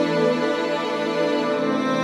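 Instrumental background music with long held chords.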